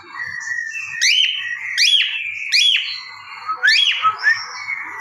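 Pet parrot whistling: a series of about five loud, sharply rising whistled notes, each sweeping up and cutting off, starting about a second in over softer chattering.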